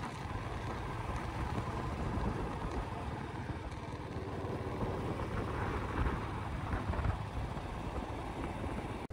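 Royal Enfield Classic motorcycle's single-cylinder engine running steadily under way on the road, with wind noise on the microphone.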